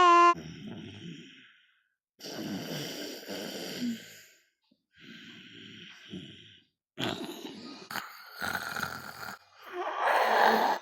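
A man snoring: about five snores, each one to two seconds long with short gaps between them, the last one near the end the loudest.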